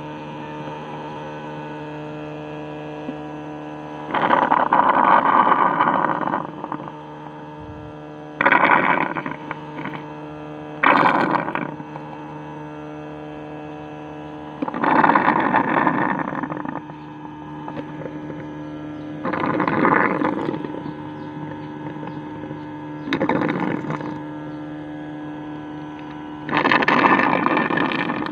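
A stingless-bee (kelulut) honey machine runs with a steady electric hum. About seven times, a louder rushing noise rises over the hum for one to two seconds and then falls back.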